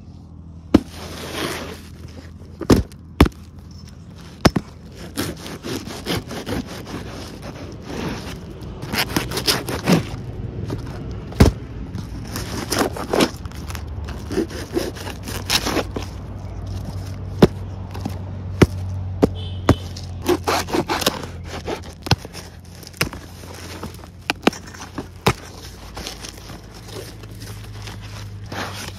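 Cardboard boxes wrapped in plastic film and packing tape being handled and torn open by hand: scraping, crackling and rustling, with many sharp snaps and taps.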